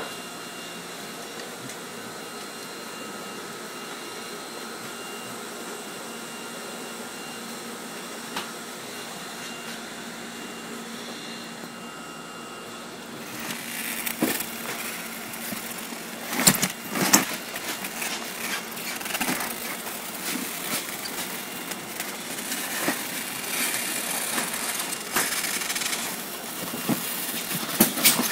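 A steady machine hum with a few faint whining tones. From about halfway on come irregular knocks, bumps and rustling from the divided cardboard box of live lobsters being handled.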